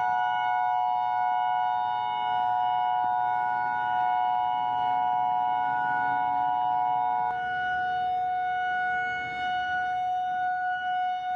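Emergency alert attention tone: steady electronic tones in a harsh chord, with the upper tones cutting off abruptly about seven seconds in, leaving a single steady tone.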